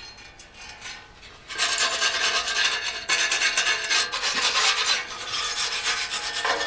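Sanding of hardened body filler on a plastic bumper: a steady rasping that starts about a second and a half in and keeps going.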